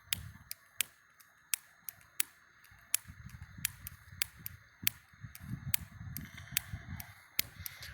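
A lighter being clicked over and over without catching, about a dozen sharp clicks roughly every half second to a second. A low rumble comes and goes between the clicks in the middle.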